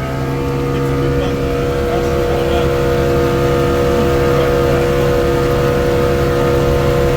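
Motorboat engine running steadily under way, a constant hum with a low rumble, growing a little louder in the first second.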